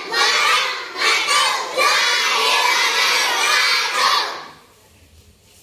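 A large group of children chanting loudly together in phrases, stopping about four and a half seconds in.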